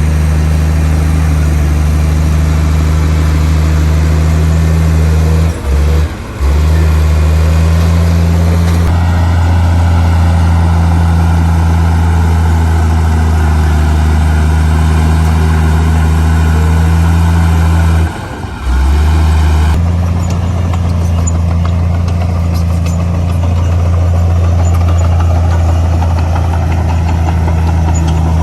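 Heavy earthmoving machine's diesel engine running at a steady speed, a deep even drone that briefly drops out about six seconds in and again about eighteen seconds in.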